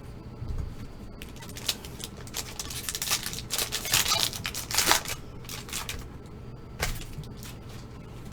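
Foil trading-card pack being torn open and its wrapper crinkled as the cards are pulled out and handled: a run of quick sharp rustles and crackles through the middle, and one more near the end.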